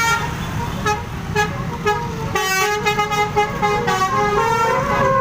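Telolet basuri musical air horn playing a quick tune of short notes that step up and down, over a continuous engine rumble.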